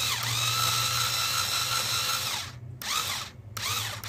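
Small cordless drill running: a steady motor whine for about two and a half seconds, a brief stop, then quick on-off spurts with the pitch rising and falling.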